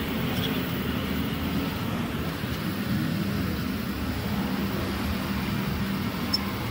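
A steady low mechanical hum, like an engine running at a distance, over an even background noise, with no distinct knocks or clanks.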